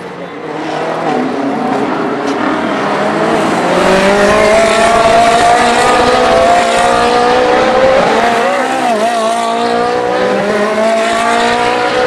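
Ferrari 458 Challenge race cars' V8 engines accelerating out of a chicane, several cars at once. The engine note climbs steadily in pitch and grows louder over the first few seconds, with a brief dip and recovery in pitch about nine seconds in.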